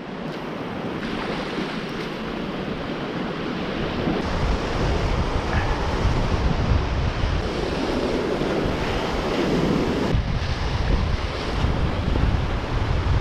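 Ocean surf breaking and washing against a rocky shore, swelling about two-thirds of the way through, with wind buffeting the microphone.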